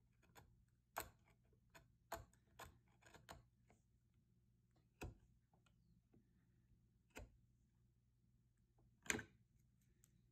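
A chisel paring a small rabbet in red oak by hand: sharp, single clicks as the edge cuts through and chips break away, about seven at uneven intervals. The loudest comes near the end, with near silence in between.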